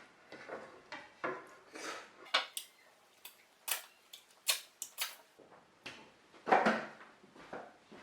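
Close-up eating sounds: a string of sharp clicks and scrapes of cutlery on a plate, with a louder, fuller crunching or chewing sound about six and a half seconds in.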